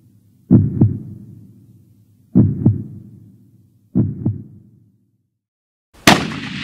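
Heartbeat sound effect: a slow double thump three times, about two seconds apart, the last one fainter. About six seconds in, after a second of silence, comes a single loud rifle shot that rings out and fades.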